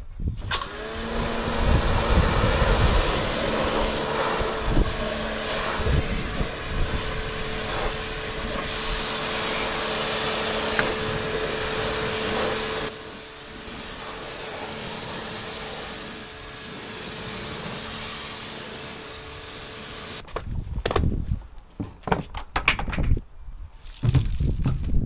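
An electric motor-driven machine spins up, then runs steadily with a hum under a loud hiss. It drops in level about halfway through and switches off after about twenty seconds, followed by a few knocks and clatters near the end.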